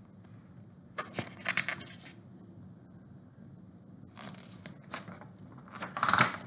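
A large paperback picture book being handled, its paper covers and pages rustling and scraping in several short bursts, the loudest near the end as the book is swung round.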